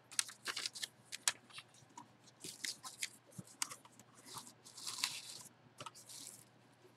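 Paper and packaging rustling and crinkling in a string of short, irregular bursts as hands handle a paper certificate and then pull a wrapped baseball from a small cardboard box.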